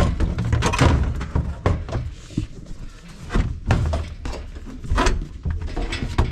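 Irregular series of knocks, clunks and thuds, several a second in places, over a low hum.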